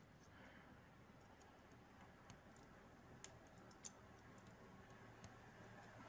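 Near silence with a few faint, irregular light clicks of a steel feeler gauge blade touching the camshaft lobe and valve tappet as the valve clearance is checked.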